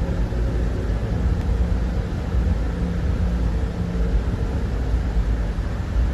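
A steady low rumbling noise with a faint hum that comes and goes.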